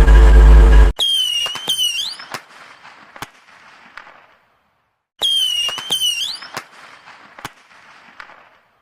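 A loud, distorted bass-heavy blast cuts off about a second in. Then a firework sound effect plays twice: each time a short whistle that dips and rises, followed by scattered crackling pops that fade away over a few seconds.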